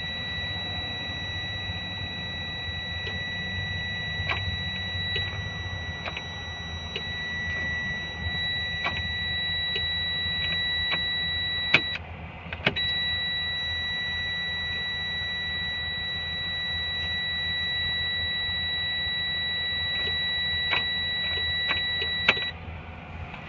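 Steady high-pitched warning buzzer from a 2014 Freightliner truck's cab. It cuts out for a moment about halfway, then sounds again until near the end, over a constant low rumble and scattered sharp clicks.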